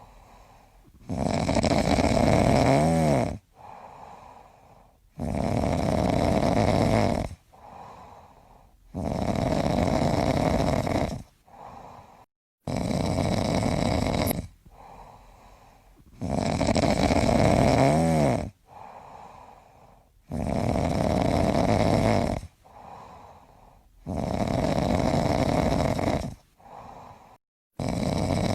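A person snoring in long, heavy snores of about two seconds each, one roughly every four seconds, with a fainter breath between them.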